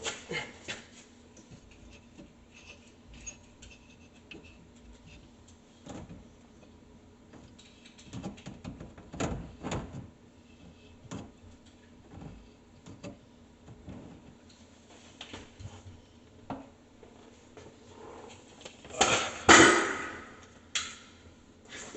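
Scattered knocks, clicks and rustles of things being handled in the cabinet under a sink, with a louder rustling scrape about nineteen seconds in.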